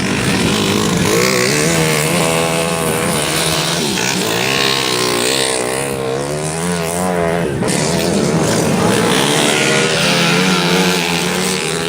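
Racing motorcycle engines on a dirt track, revving hard, with the pitch rising and falling as they are worked through the gears and corners.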